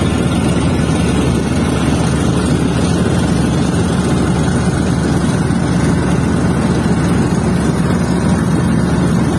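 Outrigger fishing boat's engine running steadily under way, a loud, even drone.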